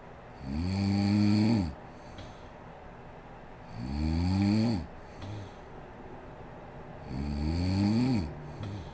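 A sleeping woman snoring: three loud snores about three seconds apart, each rising in pitch as it goes.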